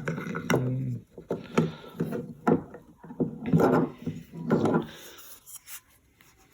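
Handling noise from a Glock 19 replica CO2 BB pistol and its built-in CO2 insertion tool: a string of irregular knocks, clicks and rubbing of plastic and metal parts, growing sparse near the end.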